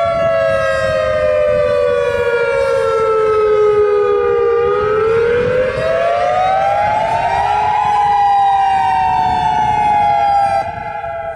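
Federal Signal EOWS 612 electronic outdoor warning siren sounding its wail, two tones together. The pitch sinks through the first half, climbs from about five seconds to eight seconds in, then slowly falls again. The siren drops sharply in loudness near the end.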